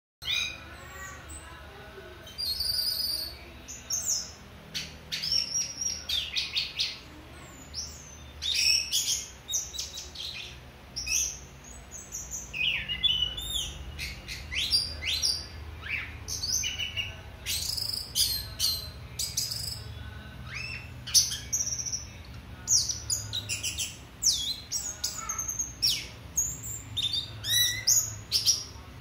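Orange-headed thrush singing a long, varied song of quick high phrases, whistles and trills, one phrase after another with short gaps.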